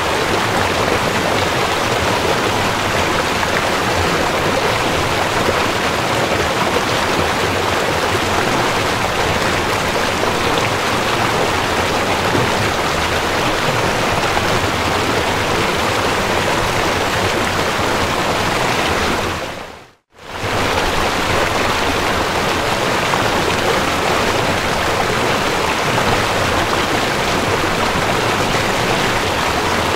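A river rushing steadily over gravel, a loud even wash of water. About two-thirds of the way through it dips briefly to silence and comes straight back.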